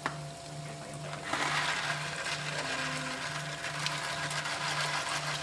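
Seasoned steak sizzling as it is laid into a hot frying pan of onions and garlic; the sizzle swells about a second in as more meat goes into the pan.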